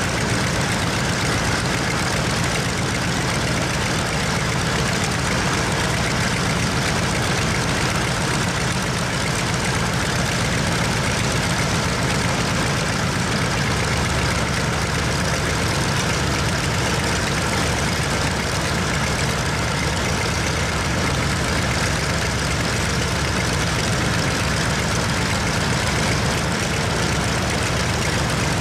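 Nakajima Sakae 21 fourteen-cylinder radial engine of an A6M5 Zero fighter running steadily at low power on the ground, propeller turning.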